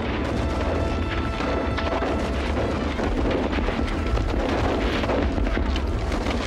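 Battle-scene film soundtrack: music over a continuous deep booming rumble of explosions and gunfire.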